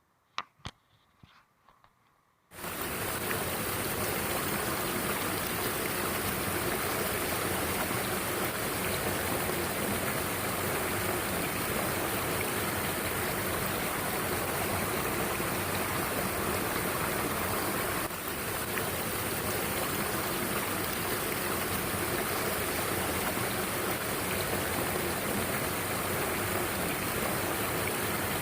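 Mountain stream rushing over rocks: a steady, dense rush of water that cuts in suddenly about two and a half seconds in, after a few sharp clicks in near quiet.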